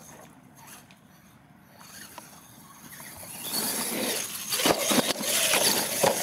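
R/C monster truck driving over muddy grass, quiet at first, then louder from about the middle as it tips and rolls over, with knocks and scraping as it tumbles in the dirt.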